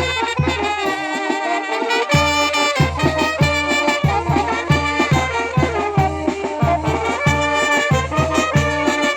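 Brass band playing a chilena: trumpets and trombones carry the melody over a regular pulsing bass line. The bass drops out about a second in and comes back about two seconds in.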